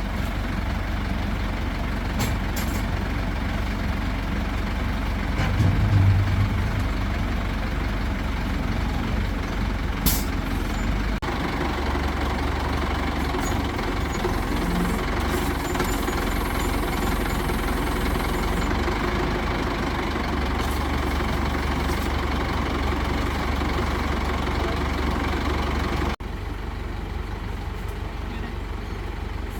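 Heavy vehicle engine running steadily, with a few short sharp knocks, the loudest about ten seconds in. The engine sound changes abruptly twice, about 11 and 26 seconds in.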